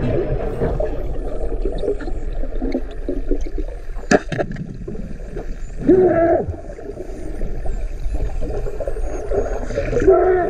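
Underwater sound picked up by a camera in its housing during a free dive: a dense, steady low rumble of water noise with gurgling. A single sharp click about four seconds in, and two short muffled pitched sounds, one near the middle and one near the end.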